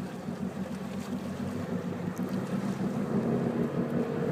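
Small tugboat's engine running with a steady low hum as it tries to tow a sailboat off the shallows, with wind buffeting the microphone and water washing.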